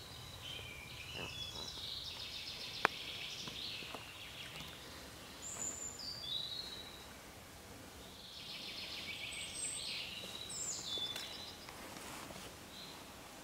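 Songbirds singing in woodland: repeated trilled phrases, with a few short high whistled notes. One sharp click comes about three seconds in.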